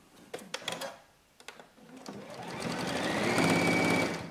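Juki UX8 computerized sewing machine stitching through a thick stack of about nine layers of cotton fabric. A few light clicks come first. About two seconds in the machine speeds up to full speed and runs fast and steady, with a high whine, then stops suddenly.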